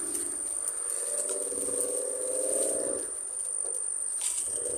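Insects chirring in a steady high-pitched drone, with a lower, fast whirring sound for about two and a half seconds in the first half.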